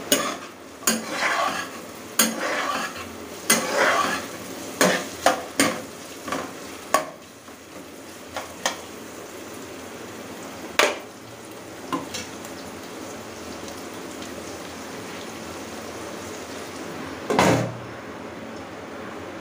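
A metal spoon stirring and scraping sliced onions and green chillies in hot oil in a non-stick kadai. There are clinks and scrapes about every half second for the first seven seconds and a few more later, over a steady gentle sizzle. Near the end one loud clatter comes as a glass lid is set on the pan.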